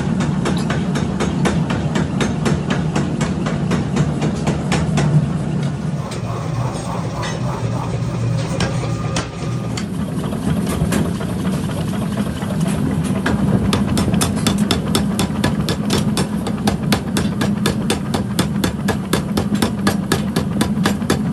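Mechanical power hammer forging a red-hot steel pickaxe head: rapid, evenly spaced blows over the steady hum of the hammer's motor.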